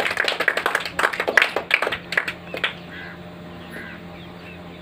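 A group of children clapping their hands in quick, uneven claps, which stop about two and a half seconds in.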